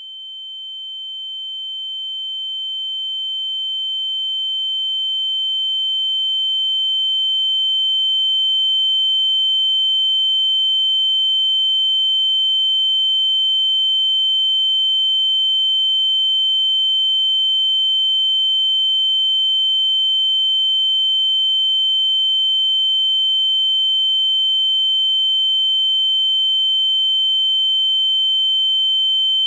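Ear-ringing (tinnitus) sound effect: a single steady high-pitched tone that grows louder over the first eight seconds or so, then holds level.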